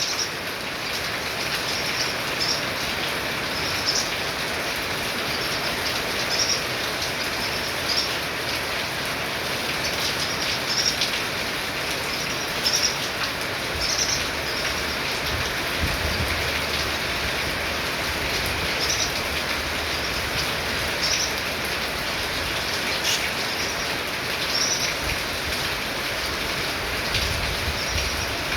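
Yuhina calling, giving many short high chirps in loose runs over a steady, dense hiss.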